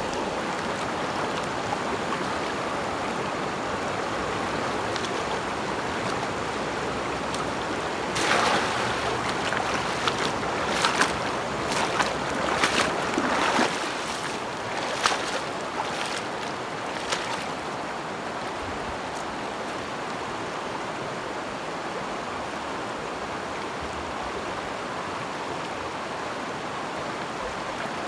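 Shallow mountain stream rushing steadily over stones. Between about 8 and 17 seconds in, a run of sharp splashes and sloshes as a man wades through the water and works a hand net.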